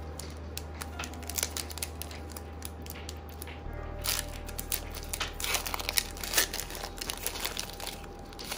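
A Pokémon booster pack's foil wrapper crinkling as it is torn open and pulled apart by hand, in quick irregular crackles that are densest around the middle.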